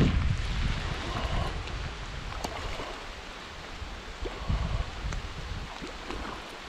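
Running river water with wind buffeting the microphone, the rumble heaviest at the start, and a hooked salmon splashing at the surface a few times as it is played on the line.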